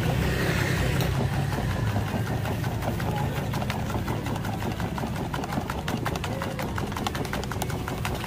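An engine idling steadily, with fast light clicking over it from about the middle on.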